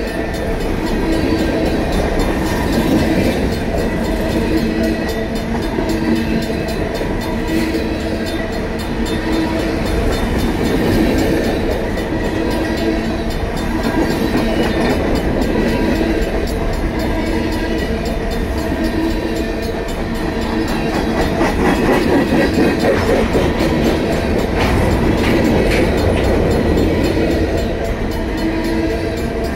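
Freight cars of a Union Pacific manifest train rolling through a grade crossing, wheels rumbling and clattering on the rail. The crossing signals' bells, including a Safetran mechanical bell, ring steadily throughout.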